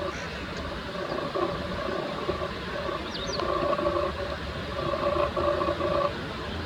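Crow cawing repeatedly, a run of harsh calls that stops about six seconds in, over steady distant traffic hum; the crow is under attack by a common kestrel.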